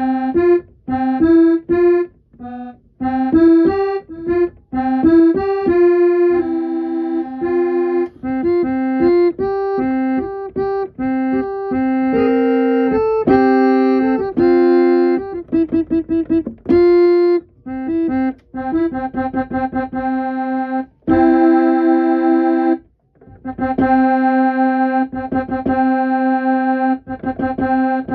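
Electronic keyboard playing a single instrument voice: a melody of short separate notes, a quick run of repeated notes in the middle, then long held chords near the end, with one short pause.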